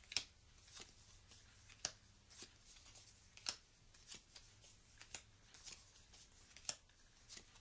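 Smooth-finished game cards being counted out and laid down one by one on a wooden table: about a dozen light, short snaps, irregularly spaced a little over one a second.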